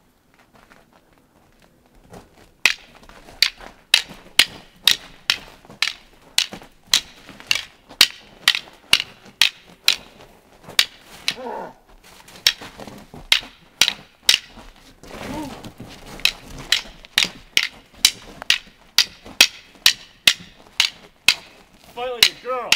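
Wooden sticks clacking together again and again, one to two sharp knocks a second, starting about two seconds in. A few short voice sounds come among the knocks.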